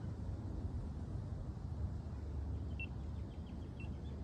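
Wind rumbling steadily on the microphone. A few short, high chirps come in near the end.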